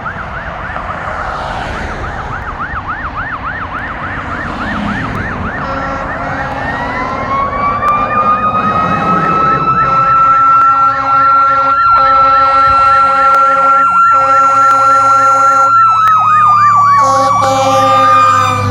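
Fire engine sirens. An electronic siren yelps in a fast warble, then a mechanical Federal Q2B siren winds up over a few seconds from a low growl to a high steady wail and holds it. A fast yelp comes back over the wail near the end, and the whole sound grows louder through the first half.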